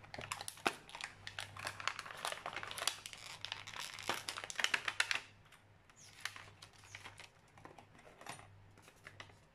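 Clear plastic packaging crinkling and rustling as it is handled and pulled apart. It crackles densely for about five seconds, then gives only a few sparse rustles.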